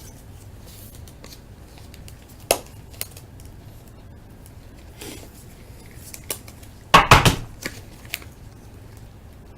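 Baseball card packs and cards being handled on a table: scattered clicks and light rustling, with a louder cluster of knocks and rustling about seven seconds in.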